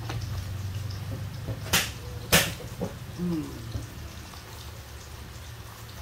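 Handling noise from an electronic blood pressure monitor and its cuff on a stone countertop: two sharp knocks about two seconds in, then a few softer clicks and rustles, over a steady low hum.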